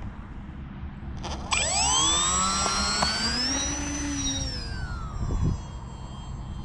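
Brushless electric motor and propeller of a 43-inch Twisted Hobbies Edge 540 V3 foam RC plane throttling up for takeoff: a whine rises sharply about a second and a half in, holds high, then drops in pitch and fades as the plane climbs away. Wind rumbles on the microphone throughout.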